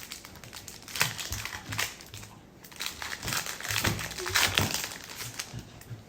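Foil booster-pack wrapper crinkling and crackling in irregular bursts as it is handled and opened.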